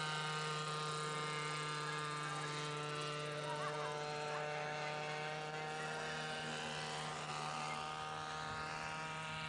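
A radio-controlled scale UH-1 Huey model helicopter in flight: its small glow engine and rotors make a steady, high-pitched whine with many even tones.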